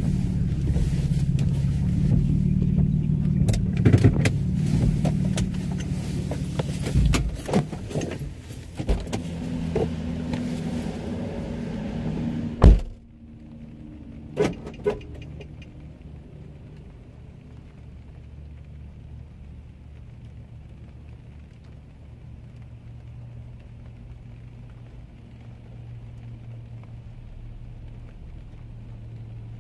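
A car running with a low rumble and scattered clicks and knocks. About 13 seconds in there is one sharp thump, and the sound drops to a faint low steady hum. Two quick clicks follow a couple of seconds later.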